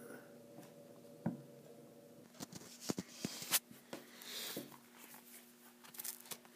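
Faint handling noises: a scattering of light taps, knocks and rustles, most of them in the middle few seconds, as a paperback book and the phone are moved about over a wooden desk, over a faint steady hum.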